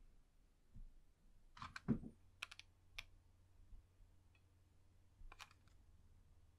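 Faint, sparse clicks and a soft knock about two seconds in, from a hot glue gun and popsicle-stick pieces being handled on a tabletop model, with a few more clicks later and a faint low hum setting in at the knock.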